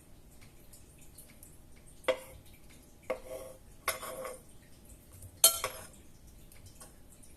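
Kitchenware knocking together, cutlery against dishes: four separate clinks, each with a short ring, the loudest near the end.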